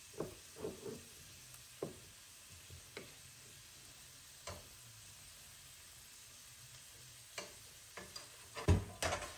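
Scattered clicks and taps of a metal spoon and tongs against a frying pan while a spoonful of coconut oil is added and the vegetables are stirred, over a faint sizzle of frying. The loudest knock comes near the end.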